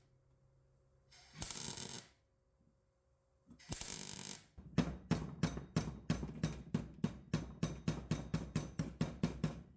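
Welder tacking a thin steel repair panel in short bursts to keep the metal cool and avoid blowing through it. Two separate bursts of about a second come first, then a quick run of short pulses, about five a second.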